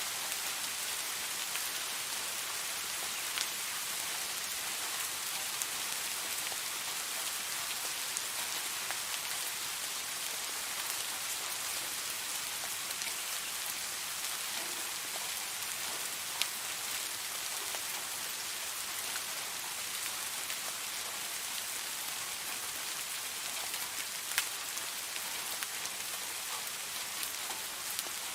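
Steady rain falling, an even hiss with a few sharper single drops ticking out above it.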